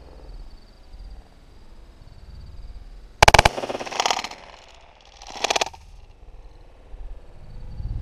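Shotgun fire: one loud sharp blast about three seconds in, then two fainter bangs about one and two seconds after it.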